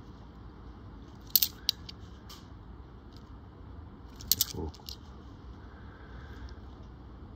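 Australian one-dollar coins clinking together in the fingers: a quick cluster of sharp metallic clinks about a second in, a couple of single clinks, then another cluster around four seconds in with a soft low thump just after it.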